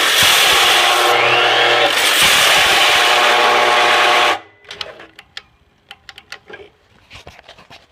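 Chop saw running and cutting into a plastic Nerf blaster: a steady motor whine with rasping blade noise. It cuts out abruptly a little over four seconds in, when the circuit breaker trips, leaving only a few faint clicks and knocks.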